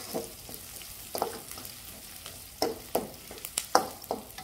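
Shallots, garlic, lemongrass and chili sautéing in oil in a metal wok: a low sizzle, with a spatula scraping and clacking against the wok at irregular moments. The loudest clacks come about three and a half seconds in.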